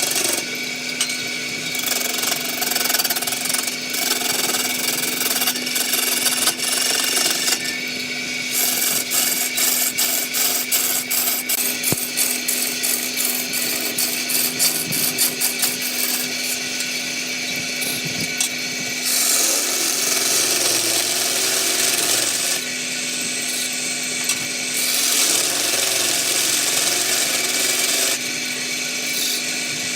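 Wood lathe running with a steady motor hum while a tool cuts and scrapes the spinning wood. The cutting noise comes and goes, with a stretch of rapid, even ticking in the middle.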